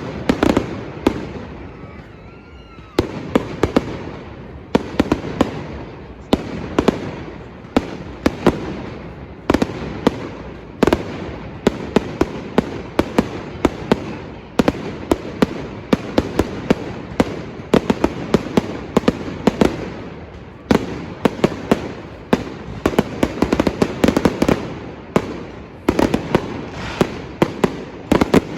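Fireworks going off in rapid, continuous volleys: clusters of sharp bangs and crackles about every second, with a rumbling echo between them.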